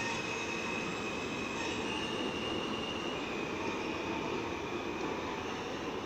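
A New York City Subway J train of modern stainless-steel cars pulling out of the station and moving away, its wheels rumbling on the rails. A high squeal of steady tones sits over the rumble and shifts in pitch a few times.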